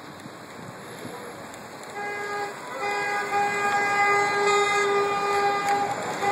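A vehicle horn honks briefly about two seconds in, then is held steady for about three seconds, over the hiss of street traffic.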